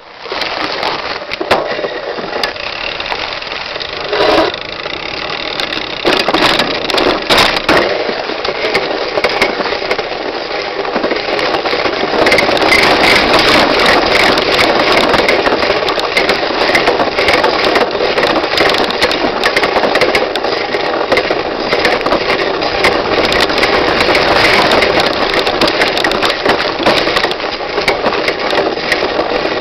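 Mountain bike rolling over a bridge, heard from a camera mounted low on the bike: a continuous dense clatter of the tyres, frame and suspension rattling over the bumps. It grows louder about twelve seconds in.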